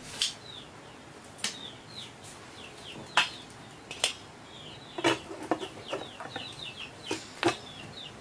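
Chickens clucking and giving many short, high, falling peeps, over a handful of sharp knocks or clacks at irregular moments.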